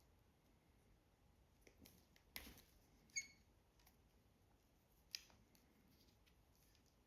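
A small metal hand tool working on speaker wiring, mostly quiet. There is a rustle about two and a half seconds in, then two sharp clicks: the first, just after three seconds, has a brief metallic ring, and the second comes about five seconds in.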